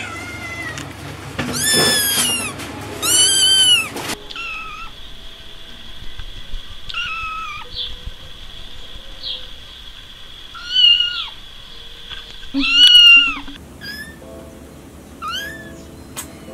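Kitten mewing repeatedly in short, high-pitched, arching calls, the loudest about two and three seconds in and again near thirteen seconds.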